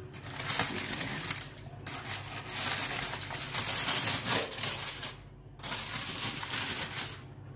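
Aluminium foil and baking paper crinkling and rustling as they are cut and peeled back off a roasting pan, in three stretches with short pauses between, over a steady low hum.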